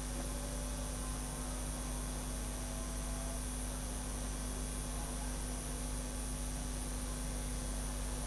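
Steady electrical mains hum with a faint even hiss.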